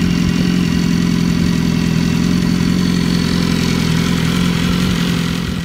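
2015 BMW S1000RR's inline-four engine idling steadily, warmed up, through an Arrow titanium slip-on exhaust with its baffle removed.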